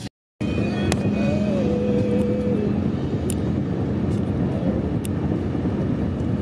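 Steady road and engine noise heard from inside a car travelling at highway speed. A faint held tone rises above it for a couple of seconds near the start.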